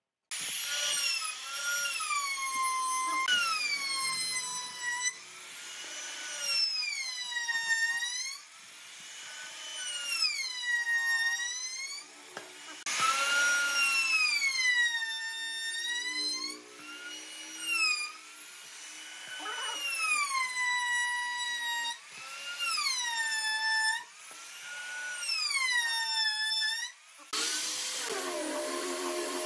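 Electric trim router with a profile bit cutting a moulded edge along pine boards; its high whine drops in pitch as the bit bites into the wood and climbs back as it frees up, over and over every second or two. Near the end it gives way to the steadier hum of a small handheld rotary sander with a round pad, sanding the moulded strips.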